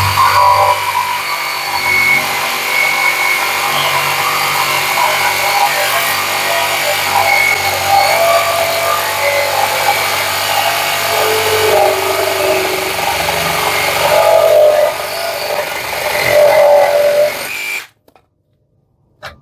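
Parkside Performance PSSAP 2028 A1 20 V cordless reciprocating saw running and cutting through wood. It cuts off suddenly about 18 seconds in, followed by a single click.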